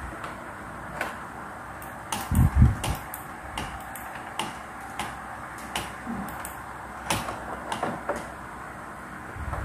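Scattered small clicks and plastic knocks from handling a USB cable at the back of an Epson L121 inkjet printer, with one louder, dull thump about two and a half seconds in.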